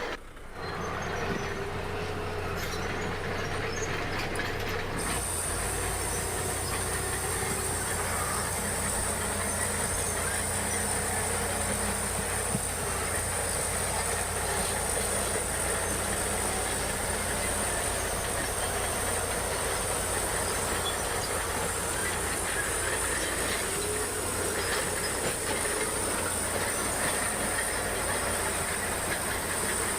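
Crawler bulldozer working: its diesel engine runs steadily under the clatter of its steel tracks. A steady high whine joins in about five seconds in and holds.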